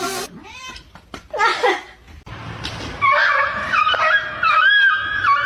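A pet animal calling: a short falling call about a second and a half in, then a long wavering, high-pitched call starting about three seconds in.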